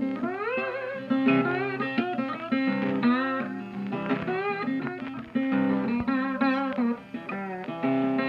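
Guitar music: plucked notes with sliding, bending pitches over a repeated low note.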